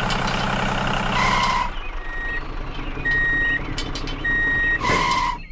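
A heavy vehicle's engine running, falling away about two seconds in, while a reversing alarm beeps repeatedly.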